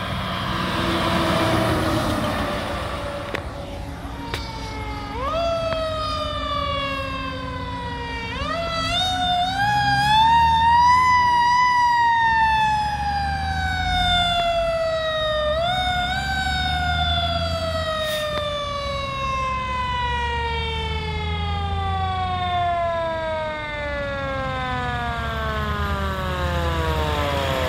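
Fire truck siren winding up in several short pushes to a high whine, then slowly winding down over many seconds, over the low rumble of the trucks' engines.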